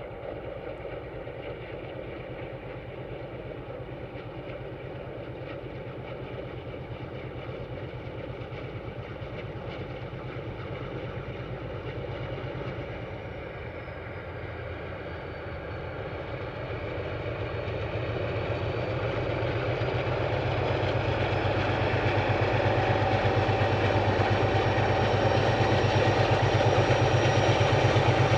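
Diesel locomotive approaching at the head of a train, its engine drone pulsing steadily and growing louder over the second half as it draws near.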